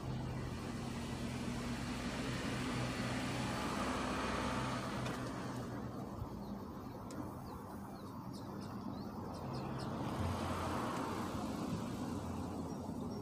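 A motor vehicle running nearby: a low steady hum with a rushing noise that drops away about five seconds in and swells again near the end.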